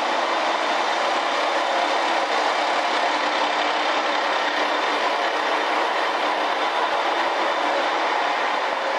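KiHa 47 diesel railcar, its diesel engine giving a steady, even drone with a few held tones and no change in level.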